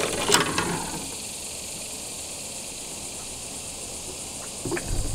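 A brief splash as a small snook is lifted out of the water beside the boat, then a steady high hiss of insects, with a few soft knocks near the end.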